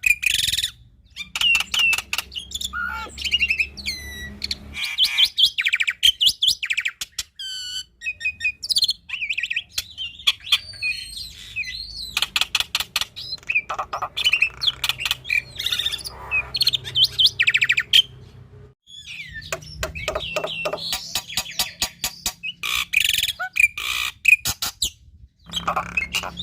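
Black-winged myna (jalak putih) singing at length: fast runs of harsh clicks and chatter mixed with whistles and sweeping notes, including phrases copied from other birds, with short pauses about a second in and about two-thirds through.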